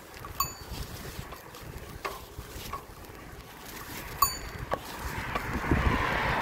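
Riding a hybrid bicycle: a low rumble of wind on the microphone, with scattered sharp metallic clicks and clinks from the bike, two of them ringing briefly. A rush of noise swells over the last second or so.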